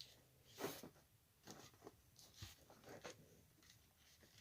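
Near silence with a few faint, brief clicks and rustles of small things being handled.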